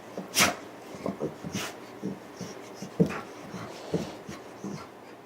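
Labrador retriever making a run of short, irregular low noises of the kind a dog makes at night, with a few sharp clicks among them, the loudest about half a second and three seconds in.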